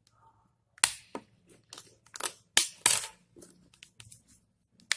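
Plastic casing of a Nokia Asha 302 phone clicking and cracking as it is pried open, its snap-fit clips letting go: a string of sharp snaps, loudest about a second in and again around the middle, with another near the end.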